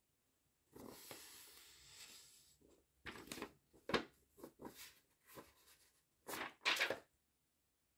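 A printed paper sheet handled and turned over by cotton-gloved hands: a soft rustle about a second in, then a run of sharp crinkles and flaps, the loudest near the end.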